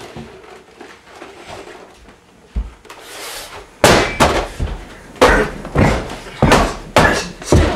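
A single thump, then from about four seconds in a rapid run of about ten loud, sharp gunshot bangs in under four seconds.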